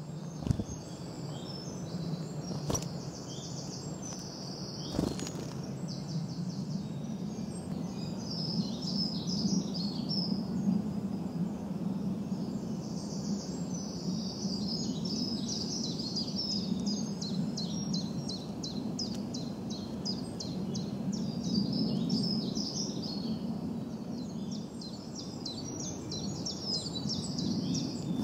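Songbirds singing, with fast repeated chirps and trills throughout, over a steady low rumble. A few sharp clicks come in the first five seconds.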